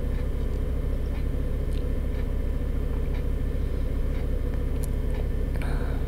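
Doosan 4.5-ton forklift's engine running steadily while the forklift moves forward, heard from inside the operator's cab, with a few faint clicks.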